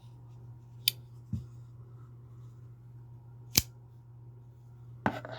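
A few sharp metallic clicks from a heavy folding pocket knife being handled, spaced a couple of seconds apart, the loudest about halfway through, over a steady low hum.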